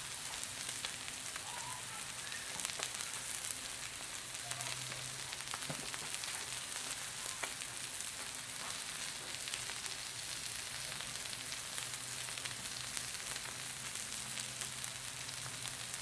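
Salmon fillets sizzling steadily on a Blackstone flat-top griddle, with a fine, continuous crackle of spitting fat.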